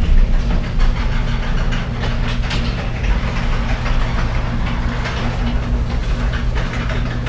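A machine running steadily, with an even low hum and a light rattling clatter over it.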